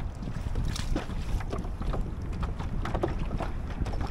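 Wind rumbling on the microphone, with small waves slapping irregularly against the hull of a fishing kayak.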